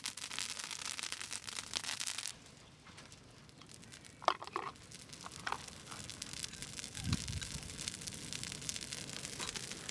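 Open wood fire of dry twigs, straw and leafy branches crackling and popping, the crackle dropping away suddenly about two and a half seconds in and building again. A couple of short high-pitched squeaks stand out about four seconds in, and there is a low thump around seven seconds in.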